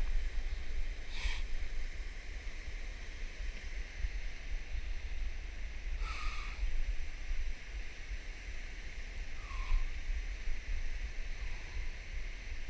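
Steady rush of flowing river water with wind rumbling on the microphone, and a few short chirping calls at intervals, some dipping in pitch.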